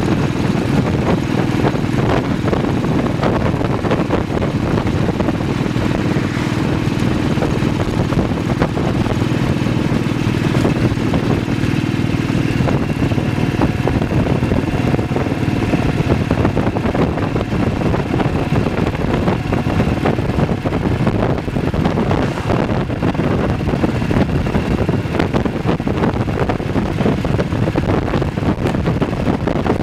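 BSA WM20's 500 cc side-valve single-cylinder engine running steadily at road speed, heard from the rider's seat.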